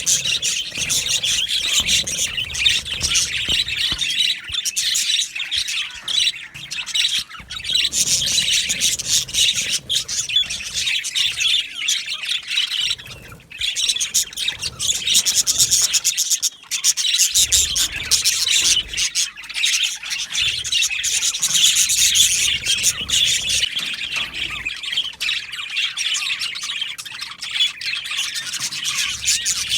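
A flock of budgerigars chattering and chirping together, a dense continuous warble of many overlapping high calls and short squawks.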